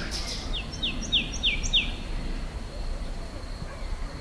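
Countryside ambience: a bird gives a quick run of about five short chirps, each sliding downward, during the first two seconds, over a steady low background rumble.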